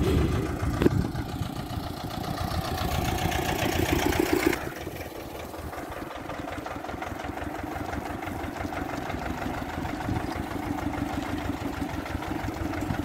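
Ursus C-330 tractor's two-cylinder air-cooled diesel running as the tractor pulls up, then dropping to a quieter, steady idle about four and a half seconds in.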